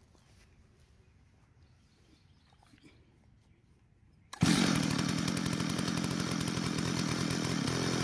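Stihl 034 AV Super two-stroke chainsaw engine catching suddenly about four seconds in and running steadily. It runs on fuel poured straight into the spark plug hole, showing it has spark and compression and pointing to the carburetor as the fault.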